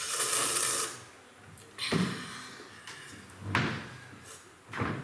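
A rushing scrape lasting about a second, then three separate knocks about a second and a half apart.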